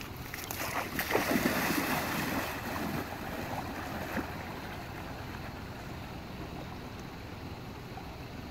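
A person wading quickly through deep river water, the water sloshing and splashing around his legs, loudest in the first few seconds and then settling into a steady wash.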